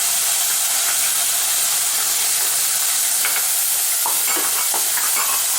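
Boiled, chopped onions sizzling loudly and steadily in hot oil, the wet onions just added to the pan. A spoon stirs and scrapes the pan a few times in the second half.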